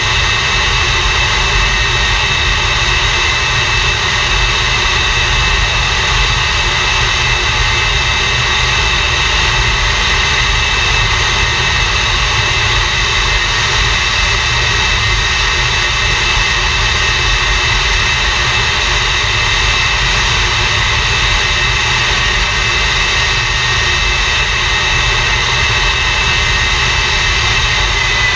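English Electric Lightning's Rolls-Royce Avon turbojet (engine number 2) running steadily on a ground run, loud. A continuous low rush sits under a steady high-pitched whine.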